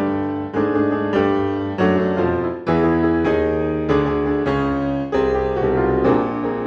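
Background piano music: a melody of separate struck notes, each fading after it sounds.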